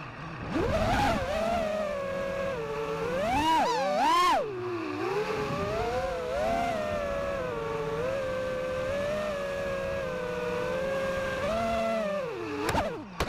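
FPV quadcopter's electric motors whining, the pitch rising and falling in swells as the throttle is worked, steadier through the middle. Shortly before the end the motors wind down, and a few sharp clicks follow as the drone comes down on the pavement.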